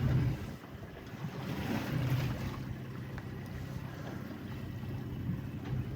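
Wind and sea noise on a small fishing boat, with a low steady hum underneath and wind buffeting the microphone.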